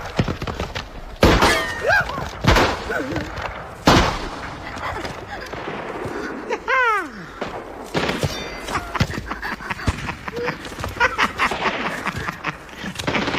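Film soundtrack of repeated sharp knocks and thuds, with a short falling tone about seven seconds in.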